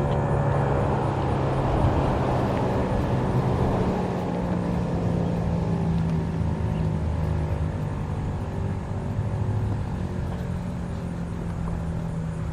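Federal Signal 508-128 single-tone chopper siren winding down at the end of its alert signal, its steady tone sliding slowly lower in pitch and fading, with a steady low hum underneath.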